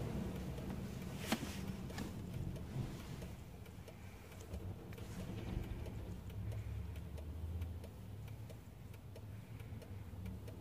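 Low, steady rumble of road traffic heard from inside a stopped car's cabin, swelling and fading, with a few faint clicks and one sharper click about a second in.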